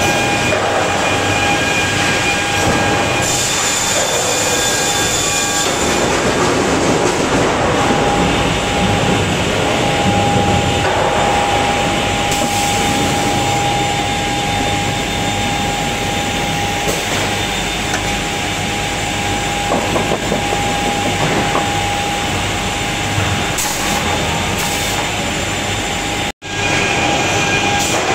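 Steady industrial din of a lumber planing, trimming and stacking line: chain transfer conveyors and rollers running, with a steady whine over the noise. There are a few light clatters, and the sound cuts out abruptly for a moment near the end.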